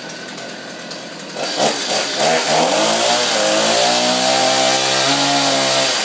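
Gas chainsaw's two-stroke engine idling, then revved up about a second and a half in and held at high revs as it cuts into a Christmas tree.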